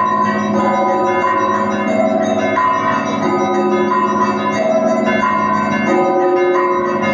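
Russian Orthodox monastery bells rung together in a festal peal: many bells sound at once, with a higher bell coming back about every second and a quarter over steady deeper tones.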